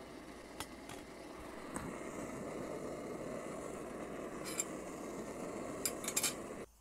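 Optimus Polaris stove burner burning steadily with a rushing noise, fed from an upside-down gas canister, with a few light clicks and knocks from handling cookware. The noise cuts off suddenly near the end.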